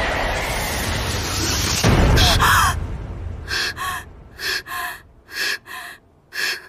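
A loud rushing wind, the sound of a fall through the air, cuts off abruptly about two seconds in. Then a girl's voice pants in short, sharp gasps, about six of them in pairs, out of breath and shaken.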